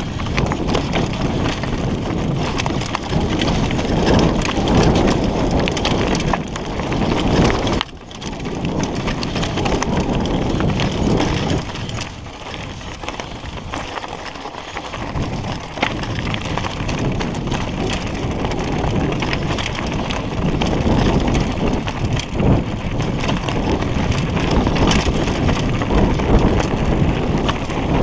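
Mountain bike riding down a rocky trail: tyres crunching over loose stones and gravel while the bike clatters and rattles over the bumps, a continuous jittery clatter with a brief lull about eight seconds in.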